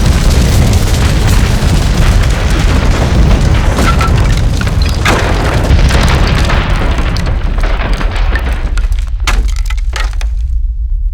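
Earthquake sound effect: a heavy deep rumble with cracking and crashing debris. The cracks and crashes thin out and die away about ten seconds in, leaving the low rumble alone.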